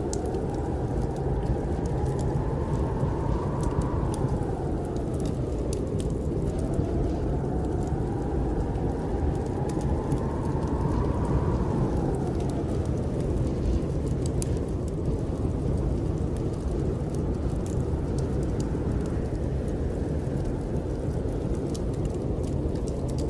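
Snowstorm wind howling in gusts over a steady low rumble, a whistling tone rising and falling away twice, with scattered small crackles of a wood fire.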